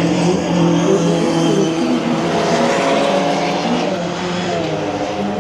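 Sports car engine running hard on a circuit, a steady engine note whose low tones fade out near the end.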